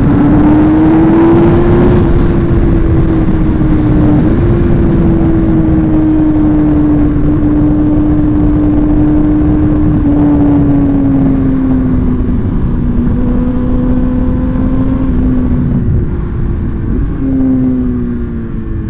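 Suzuki GSX-R1000 sport bike's inline-four engine running hard under way. The pitch climbs over the first couple of seconds, holds steady, then eases off near the end. Heavy wind rush on the microphone.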